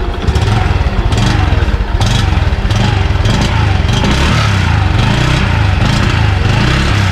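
Restored Honda Dash motorcycle's single-cylinder four-stroke engine running just after starting, its revs rising and falling. The owner finds it noisy and puts that down to the local-made aftermarket exhaust.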